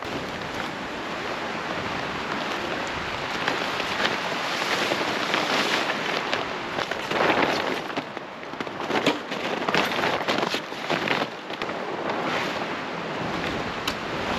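Wind gusting and buffeting the microphone: a loud rushing that swells and dips.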